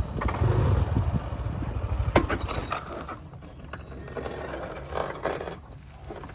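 Motorbike engine running with a low rumble that drops away about two seconds in as the bike is parked, followed by a few clicks and scrapes.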